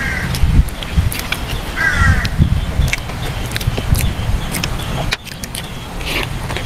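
Eating and handling sounds from a braised pork leg being picked up, with a bite into it near the end, over wind rumbling on the microphone. A bird calls twice, short wavering calls, at the start and about two seconds in.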